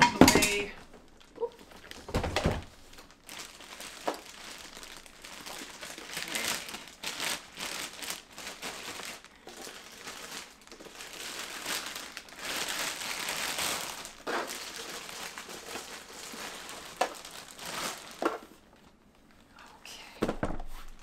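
Clear plastic wrap crinkling and rustling in repeated handfuls as it is pulled off a hard plastic carrying case, with a couple of sharp thumps in the first few seconds and another near the end.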